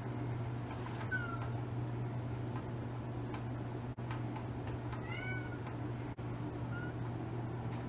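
A house cat meowing in three short calls, about a second in, around five seconds in, and near the end, the middle one rising and falling; a steady low hum runs underneath.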